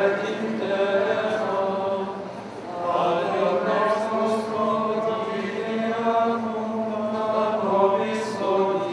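Men's voices chanting a slow liturgical chant with long held notes, pausing briefly about two and a half seconds in.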